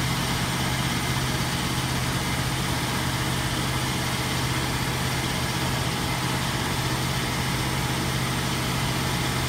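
Machinery running steadily: a constant low hum with an even hiss over it, without change or pauses.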